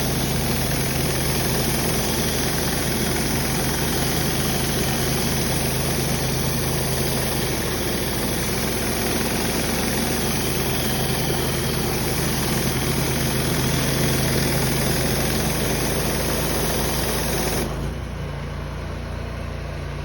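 Engine of an 8-gallon-per-minute pressure washer running steadily under the hiss of the high-pressure water spray. The spray hiss cuts off about 18 seconds in, leaving the engine running on.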